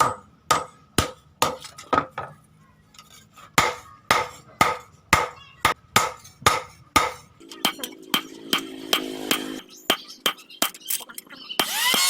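Hand hammer striking steel on an anvil, forging the blade from a chainsaw guide bar: a steady series of blows, about two a second, each with a metallic ring. Near the end a loud hiss begins.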